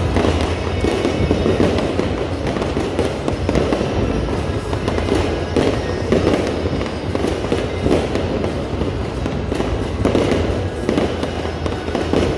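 Fireworks display in full barrage: many aerial shells bursting and crackling in quick succession, without a pause.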